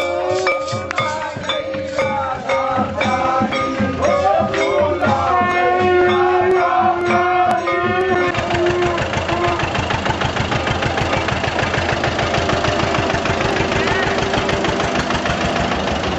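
Indian devotional music with melody lines for about eight seconds, then an abrupt cut to the steady, rapidly pulsing noise of an engine running.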